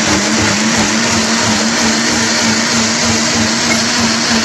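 Philips mixer grinder running at a steady speed, its motor whirring with a constant hum as the blender jar grinds boiled tomatoes, onion, garlic, ginger and chillies into a gravy paste.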